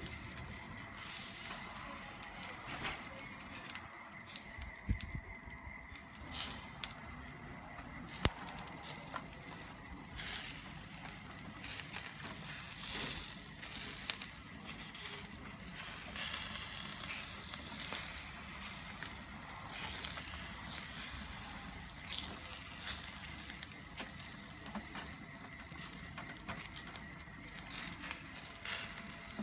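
Meat sizzling on spit skewers over hot charcoal, with fat dripping onto the coals and irregular crackles and pops. A faint steady high tone runs underneath.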